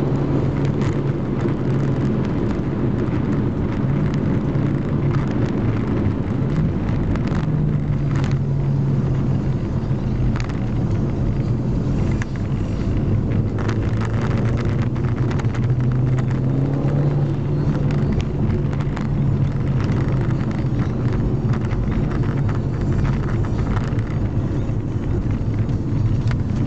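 Engine and road noise heard inside the cabin of a Seat Ibiza Cupra driven hard, the engine note rising and falling as the revs change through the bends. Short knocks and rattles are scattered through it.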